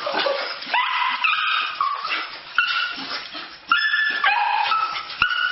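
Dogs whining and yelping in excitement at greeting their owner, a run of high-pitched cries one after another.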